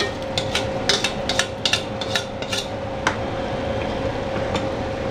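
Utensils knocking and scraping against an aluminium cooking pot as mashed chana dal is emptied in, a rapid run of clinks in the first few seconds, then a ladle stirring the thick dal and mutton gravy with only a few knocks. A steady faint hum runs underneath.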